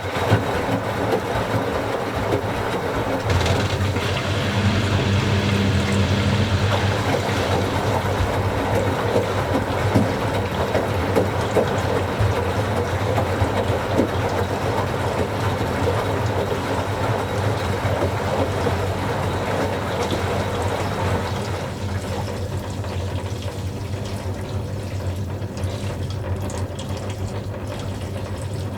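Washing machine filling with water: the inlet starts just as the sound begins and water rushes in steadily over a low hum, easing off a little about three-quarters of the way through.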